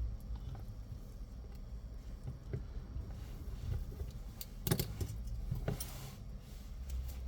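Scattered light clicks and taps of small tools and phone parts being handled on a repair bench, with a cluster of sharper clicks about two thirds of the way in, over a low steady rumble.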